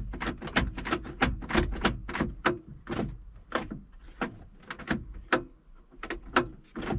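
A Mercedes W126 door lock mechanism clicking and clunking repeatedly as it is worked back and forth, about two to three clicks a second. It is freshly lubricated and moving freely.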